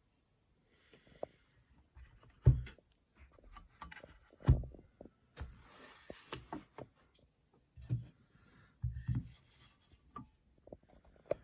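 Typing on a Besides Studio M-One mechanical keyboard fitted with Gateron Black Ink v2 linear switches and Tai-Hao keycaps: irregular keystrokes, each a sharp click over a low thud, with a few heavier strokes standing out.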